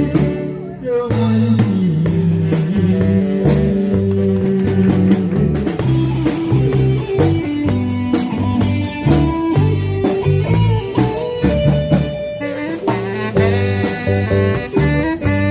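A band playing an instrumental passage of a song, without singing, led by drum kit and guitar with a steady beat.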